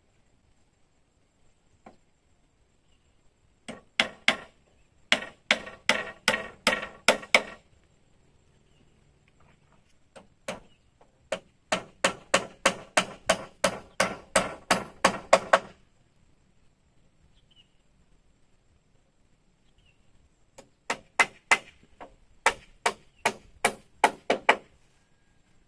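Quick, evenly spaced strikes of a hand tool on wood, about three blows a second, in three runs of a few seconds each with pauses between.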